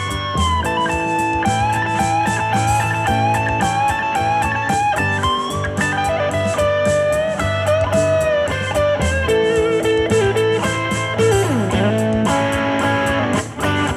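Red Fender Stratocaster electric guitar playing a blues-rock lead solo, with bent notes and a slide down in pitch near the end, over a backing track of bass and drums.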